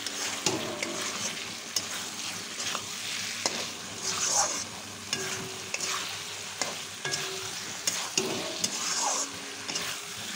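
Metal spatula scraping and clacking against a kadai as a thick masala of potatoes, onion and tomato is stirred and fried, over a steady sizzle. The spice paste is being fried down (kosha) until the oil separates. Two longer scrapes come about four and nine seconds in.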